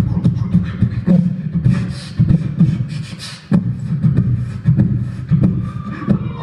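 Solo beatboxing into a handheld microphone, amplified through the hall's sound system: a fast run of deep bass and kick-drum sounds with sharp snare-like clicks, breaking off briefly about three and a half seconds in before a hard hit.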